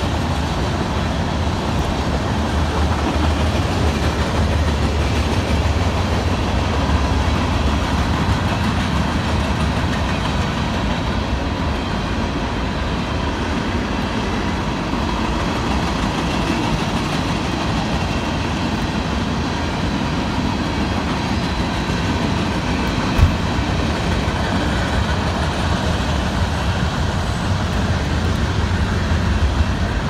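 Covered hoppers and tank cars of a freight train rolling past, a steady rumble of wheels on rails, with one sharp knock about three quarters of the way through.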